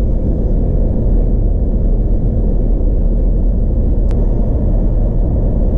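Steady low rumble of tyre and wind noise from a Volkswagen T-Cross driving at speed, picked up by a camera mounted on the car. There is one faint click about four seconds in.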